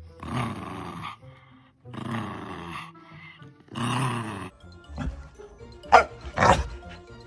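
Dog growling in three bursts of about a second each, then a few short, sharp barks near the end, over background music.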